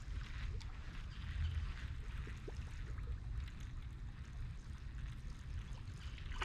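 Low steady rumble of wind on the microphone, with faint scattered ticks.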